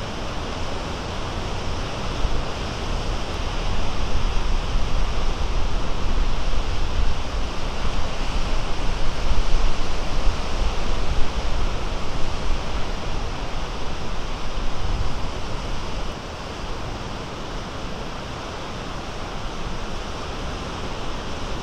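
Small Great Lakes waves breaking and washing ashore, with wind rumbling on the microphone. The rumble drops off about three-quarters of the way through.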